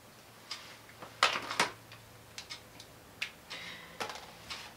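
Faint, irregular small clicks and taps, with a short scratchy rustle a little over a second in, from a whiteboard marker being handled at the board.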